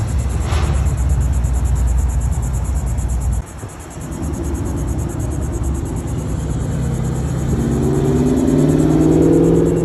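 Low engine rumble of a square-body Chevrolet pickup driving past, cut off suddenly about three and a half seconds in. Then more car engine sound builds, ending with a black Dodge Challenger's V8 rising in pitch as it accelerates away.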